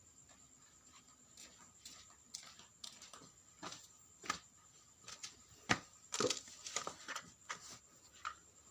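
Irregular clicks and knocks of small parts being handled, about a dozen spread over several seconds, the loudest a little past halfway, as a portable vacuum cleaner is worked on for a battery change.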